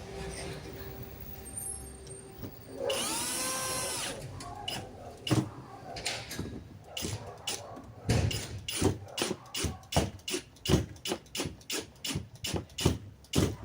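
A cordless drill/driver runs in one short burst, about a second long, its pitch rising and falling. It is followed by a long run of sharp clicks and knocks that speed up to about three a second.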